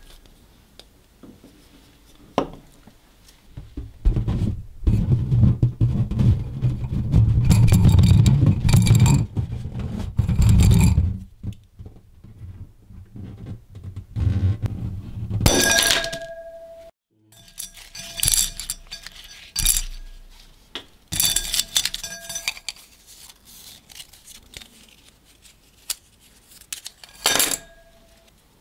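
Hand-handling noises over a glass bowl. A loud rubbing noise lasts several seconds, then come scattered clicks and light clinks of small objects against the glass, and a rubber balloon is handled and pierced with a toothpick.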